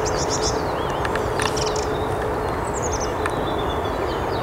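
Small birds chirping and twittering, with short rising and falling calls, over a steady rushing background and a low steady hum.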